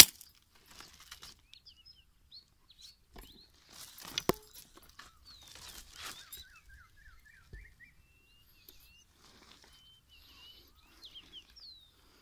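Small birds chirping with short rising and falling calls, including a quick run of rising chirps about six seconds in. Two sharp clicks, one at the very start and a louder one about four seconds in, stand out over light crunching and rustling of footsteps in dry stubble.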